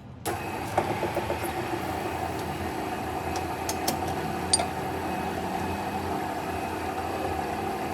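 A workshop machine's motor running steadily with an even hum. It starts abruptly just after the start, with a few light clicks and ticks on top.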